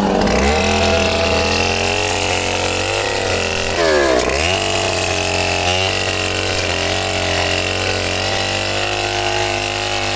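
Chainsaw engine running out of the cut, its pitch dropping sharply and climbing back about four seconds in, then holding steady.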